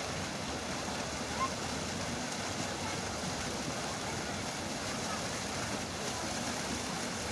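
Steady rushing outdoor noise with one short bird chirp about a second and a half in.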